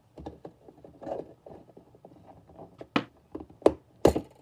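Fingers scraping and working a plastic battery clock movement loose from the back of a plastic wall clock case: a run of small scuffs and rattles, then three sharp plastic clicks in the last second and a half.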